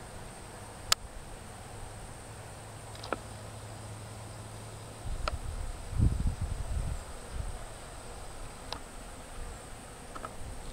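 Outdoor insect sound: a steady high thin trill with a low hum, broken by a few short sharp chirps. A low rumble of wind or handling on the microphone comes in about five seconds in and lasts a couple of seconds.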